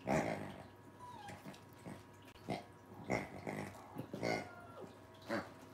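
A pig-shaped dog toy oinking as a Scottish Terrier puppy bites it: about seven short grunts spread over several seconds, with a brief falling squeak or two between them.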